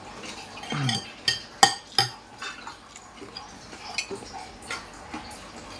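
Metal spoon and fork clinking and scraping against a ceramic soup bowl while eating bakso. There are a handful of sharp clinks, the loudest about one and a half seconds in.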